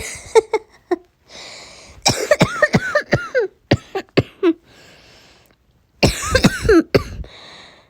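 A person coughing hard in several bouts, with noisy in-breaths between them: a bad, painful cough. The bouts come about two seconds in, briefly just after four seconds, and again at about six seconds.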